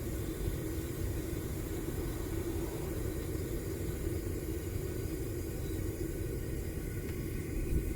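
Homemade propane furnace running at full heat: a steady rumble of the burner flame swirling around the crucible.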